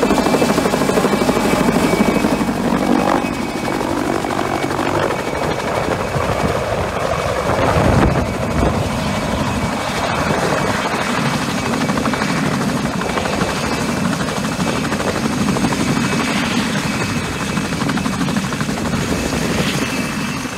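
Mi-2 helicopter flying low overhead and hovering: fast rotor beat with a steady high turbine whine, loudest at the start and again about eight seconds in.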